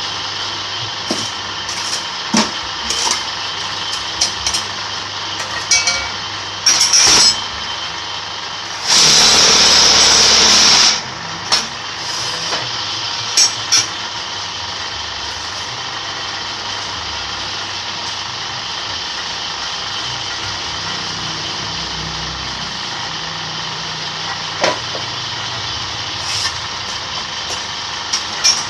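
Electric concrete-block press machine running with a steady motor hum and scattered metal clanks, broken by a brief loud burst of noise about seven seconds in and a louder one lasting about two seconds a little later.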